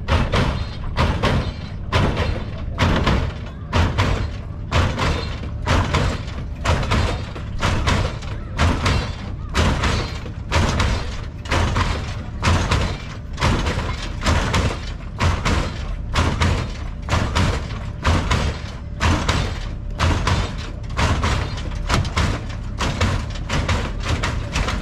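Music with a heavy, steady bass beat, about two beats a second.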